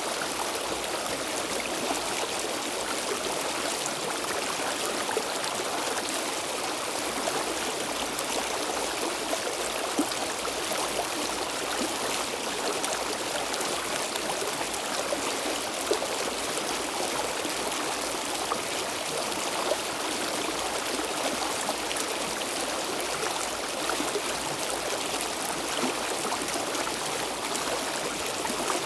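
Stream water flowing steadily, with small splashes and trickles over the constant rush.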